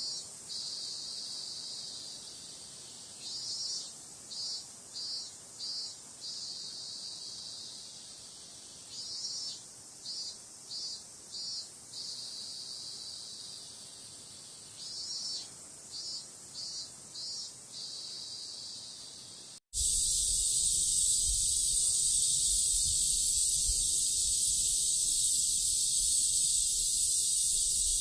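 Cicadas singing. First a song of repeated pulsed phrases, each a group of about five quick pulses every six seconds or so over a steady high drone. Then, after a sudden cut about twenty seconds in, a louder, unbroken shrill buzz.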